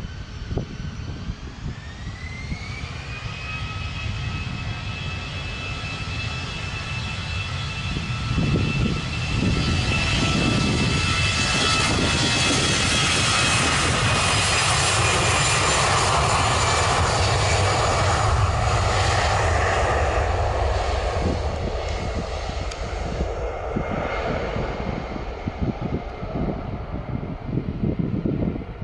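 Twin-engine jet airliner's engines spooling up with a rising whine, then running at high power in a loud roar that builds, peaks for about ten seconds and fades away as the aircraft moves off. Gusty low rumble follows near the end.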